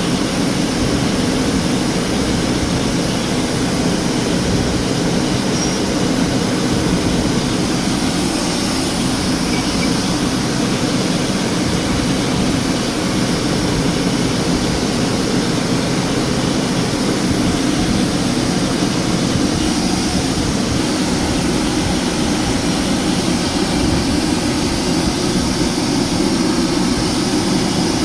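Ford Ranger 2.2-litre engine running steadily.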